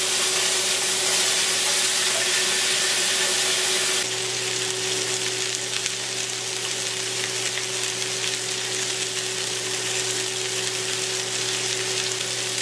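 Pork spare ribs searing in hot oil in a skillet: a steady sizzle that drops a little about four seconds in, with a faint steady hum underneath.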